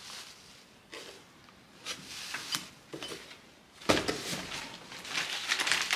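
Packaging and objects being handled in a cardboard box: scattered light knocks and rustles, a sharper knock about four seconds in, then steadier rustling of cardboard and plastic wrapping.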